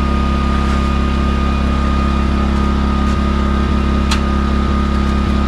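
Small portable generator running at a steady speed, a constant engine drone with a faint steady whine above it. A single sharp click about four seconds in.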